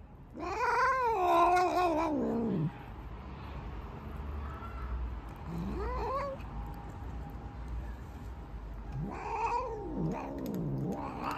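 Black long-haired cat meowing loudly: a long, wavering yowl of about two seconds that falls in pitch at its end, then a shorter rising meow about six seconds in and two or three quicker meows near the end.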